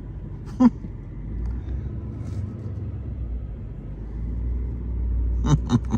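Pickup truck engine running at a slow crawl, heard from inside the cab as a steady low rumble that grows a little louder toward the end.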